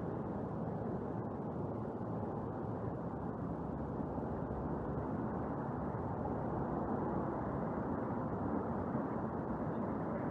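Steady city street noise, a continuous even rumble of traffic with no single sound standing out.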